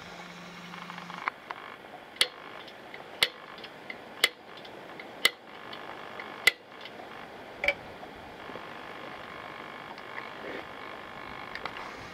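Six sharp metallic taps about a second apart: a hammer striking a centre punch held against the hatchet's metal handle tube in a vise, marking where holes will be drilled.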